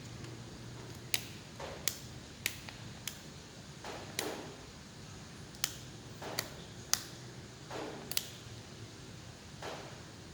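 Irregular sharp clicks and taps of small hard plastic and metal parts being handled while a 12 V cordless drill/screwdriver is taken apart, with softer handling and rustling sounds in between.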